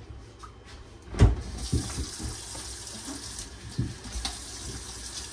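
A thump about a second in, then a kitchen faucet turned on, water running steadily into a stainless steel sink.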